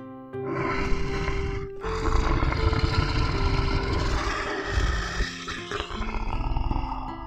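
A large animal roaring twice, a short roar and then a long one of about five seconds, over light background music with held notes.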